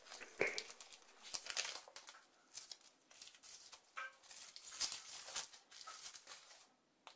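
Faint crinkling and rustling of a chocolate bar's paper sleeve and foil wrapper being opened by hand, with scattered small clicks.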